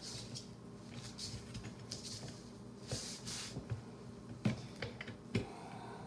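Scattered light clicks, taps and short rustles of hands handling a foam sleeve on a rod and a PVC pipe arm, over a faint steady low hum.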